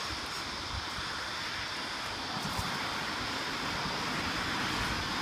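Steady outdoor noise of road traffic on the adjacent road, with wind rumbling on the phone's microphone.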